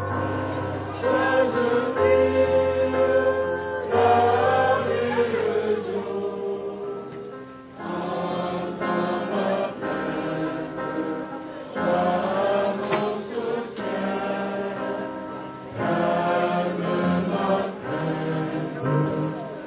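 Choir singing a hymn-like song in phrases over a steady accompaniment, with short breaks between phrases about 8 and 16 seconds in.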